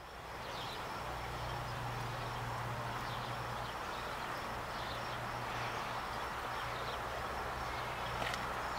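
Steady outdoor ambience: an even rushing noise over a low hum, with short high chirps scattered through it and a sharp click near the end.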